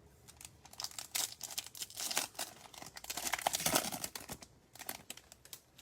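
Foil trading-card pack wrapper being torn open and crinkled by hand: a run of irregular crackling rustles that thins out near the end.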